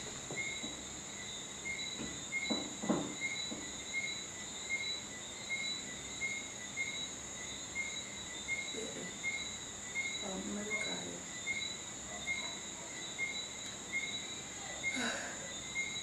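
Insects chirping: a steady high trill with a short, regular chirp a little under twice a second over it, and a few faint low murmurs.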